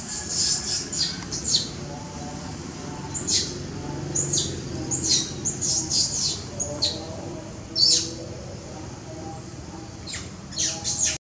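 A juvenile long-tailed macaque crying, in many short, shrill, high-pitched squeals that come in quick clusters throughout.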